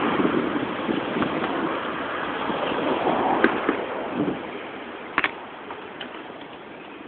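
Road and wind noise of a bicycle ride picked up by a camera on the bike, fading away as the bike slows to a stop. A short sharp click sounds about five seconds in.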